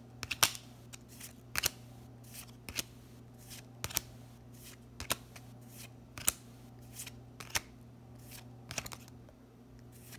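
A stack of trading cards being flipped through in the hand, each card slid off the front with a short crisp snap, about one a second.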